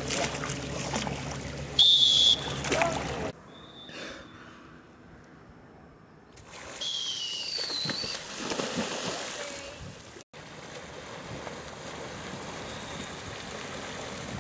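Water splashing and rushing as dolphins tow swimmers along, with a short, loud, steady whistle about two seconds in and a couple of fainter gliding whistles around the middle. Near the end the rush of churned water is steady.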